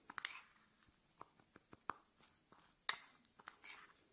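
Metal spoon stirring a thick fenugreek-and-honey paste in a small cup, clinking and scraping against the cup's sides in irregular light clicks, the loudest about three seconds in.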